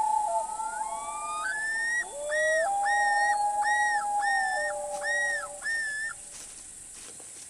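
Common loons calling across water: a long wail held at one pitch that steps down now and then, overlapped by a yodel of rising notes and then six repeated looping phrases, about two a second, that stop about six seconds in.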